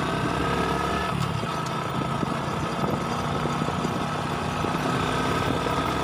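Motorcycle engine running steadily while being ridden at an even speed, heard from the rider's seat, with a steady hiss over it.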